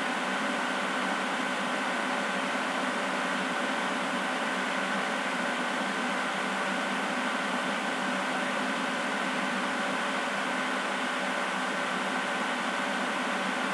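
Steady background hum and hiss with a few faint constant tones, unchanging throughout; no other sound stands out.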